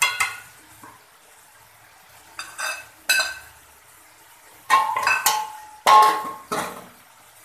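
Dishes and utensils clinking and clanging against an aluminium karahi as ingredients are added to it: a series of sharp, ringing metallic strikes, the loudest about five and six seconds in.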